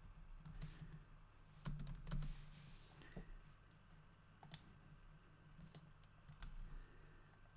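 Irregular keystrokes on a computer keyboard as code is typed, with a quick run of taps about two seconds in.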